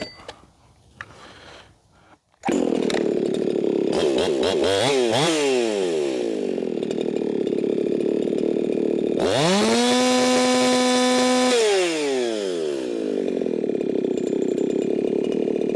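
Race-modified Echo 4910 two-stroke chainsaw starts abruptly about two and a half seconds in and blips its throttle up and down a few times. It then screams at a steady high pitch, held wide open for about two seconds at around 15,000 rpm read on a tachometer, before dropping back to a lower run. This is a free-revving top-speed check after leaning out the carburettor.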